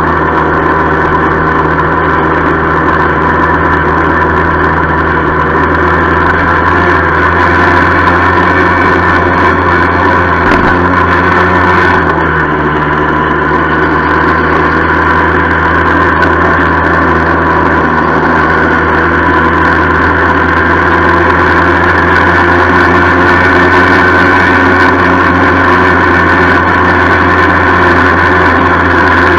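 Yamaha FS-1 moped's 49cc two-stroke single-cylinder engine running steadily while riding, with a rattling noise from the bike; the engine doesn't run as smoothly as it should. The engine note dips and settles slightly lower about twelve seconds in.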